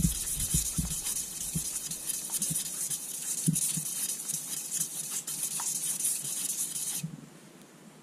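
Abrasive strip wrapped around a Rover 3.5 V8 crankshaft journal, rubbed rapidly back and forth to polish out scoring: a steady abrasive hiss with irregular low knocks from the strokes. It stops abruptly about seven seconds in.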